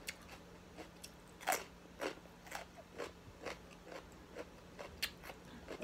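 Raw carrot stick being bitten and chewed: a run of crisp crunches at about two a second, the loudest about one and a half seconds in.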